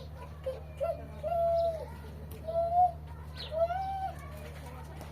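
An animal calling repeatedly: two short notes, then three longer calls, each rising and falling in pitch.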